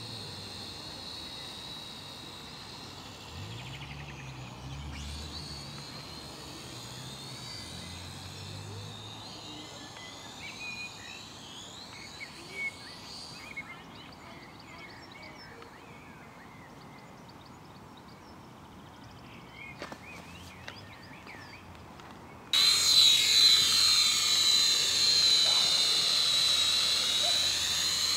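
Syma X5C toy quadcopter's coreless brushed motors and propellers whining, its pitch sweeping up and down as it flies at a distance, then stopping about halfway through as its battery runs out. About two-thirds in, the whine comes back suddenly and much louder as the quad hovers close by.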